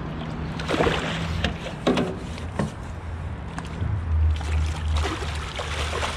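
A hooked carp thrashing and splashing at the surface beside the boat as it is brought to the landing net, in several short surges of splashing. A steady low hum runs underneath.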